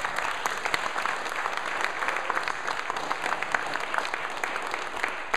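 Audience in a small meeting room applauding: steady, dense hand-clapping.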